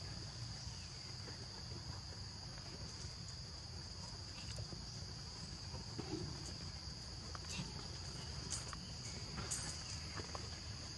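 Steady high-pitched drone of insects, with a low rumble beneath and a few faint clicks and rustles.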